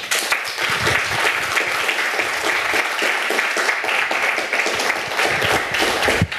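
Audience applauding: dense clapping that starts abruptly and dies away near the end.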